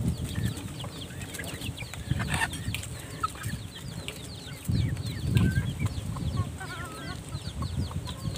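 Chickens clucking now and then over many short, high chirps of small birds, with a low, uneven rumble of wind on the microphone.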